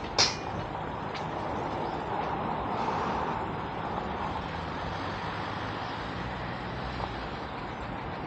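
Street traffic: a steady low engine hum with road noise that swells as traffic passes a couple of seconds in. A short, sharp high sound comes right at the start.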